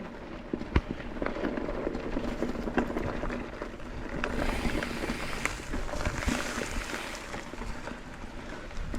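Mountain bike being ridden along a dirt trail: tyres rolling over rough ground, with the bike rattling and many scattered sharp clicks and knocks.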